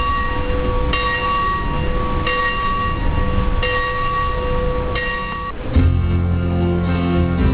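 Church bell ringing, struck four times a little over a second apart, its hum carrying on between strikes. Music with guitar comes in near the end and takes over.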